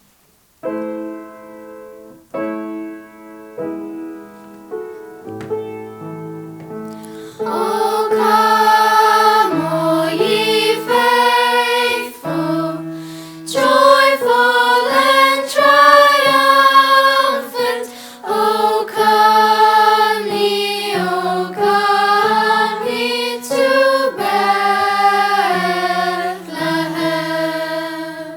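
A choir singing with piano accompaniment. The piano plays a few struck, fading chords as an introduction, and the choir comes in about seven seconds in.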